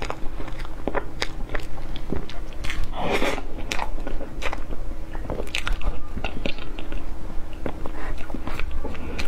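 Close-miked eating sounds of whipped-cream sponge cake: wet, sticky mouth clicks and smacks while chewing, with a louder, longer wet sound about three seconds in as a forkful of cream is taken in.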